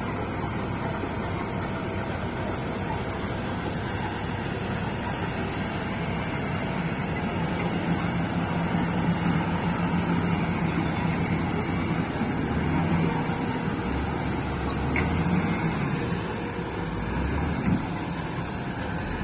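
Kobelco excavator's diesel engine running steadily, its low note shifting up and down several times in the last third as the machine works.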